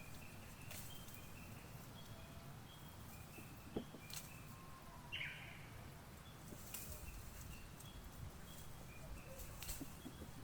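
Small birds calling faintly outdoors: many short, high, even notes repeated again and again, with one quick falling call about halfway. A few sharp clicks or rustles come now and then over a steady low background rumble.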